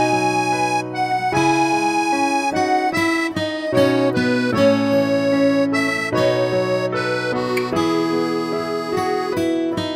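Background music: an instrumental tune with a melody of held and quick notes over sustained chords.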